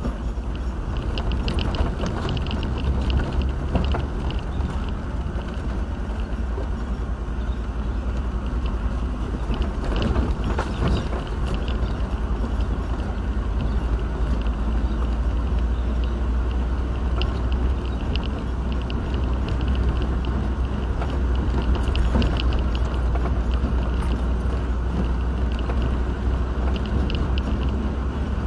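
Steady low rumble and road noise of a moving car, picked up by a dashcam microphone, with faint ticking above it.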